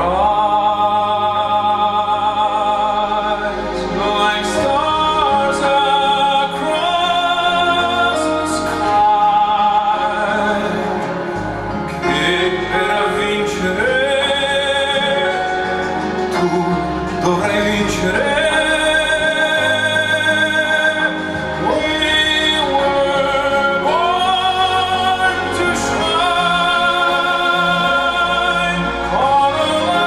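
A song with a singer's long held, wavering notes over instrumental accompaniment. It is played back loudly through Monitor Audio Bronze 5 floor-standing speakers and heard in the room.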